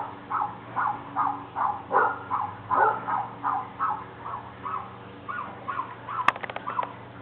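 Dog barking in a rapid, steady run, about two to three barks a second, thinning out after about five seconds. A sharp click about six seconds in.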